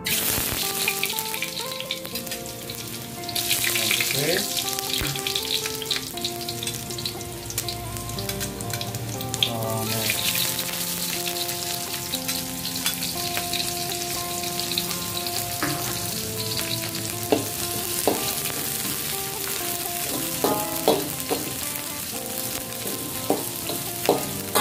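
Chopped garlic and sliced red onion sizzling in hot oil in an aluminium wok, getting louder about four seconds in and again around ten seconds. A metal spatula stirs and scrapes the pan, with sharp taps on the wok that come more often near the end. Quiet background music plays underneath.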